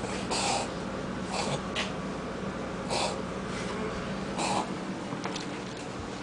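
Dachshund wheezing with short snorting breaths, about five of them at irregular intervals over the first four and a half seconds, then quieter.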